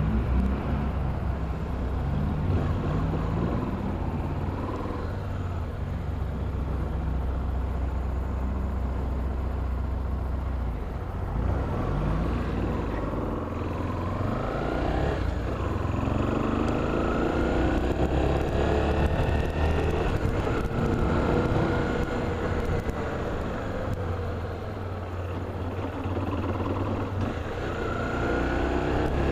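Motor vehicle engine running with steady road rumble; its pitch rises and falls several times as it speeds up and eases off.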